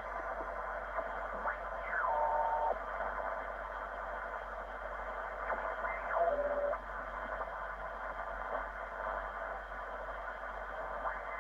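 ICOM IC-R8500 communications receiver giving band hiss in upper-sideband mode as its tuning dial is turned across the 20-metre amateur band. Signals slide through as falling and rising whistles, and brief steady tones stand out about two and six seconds in. The receiver is now tuning and receiving normally after repair of its PLL-lock failure.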